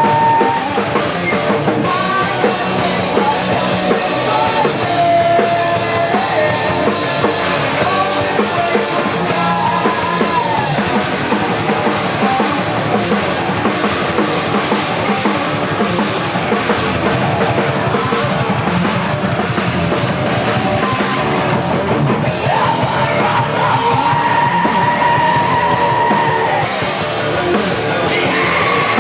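A band playing loud, driving music live, with a drum kit keeping a steady beat. A long note is held for several seconds near the end.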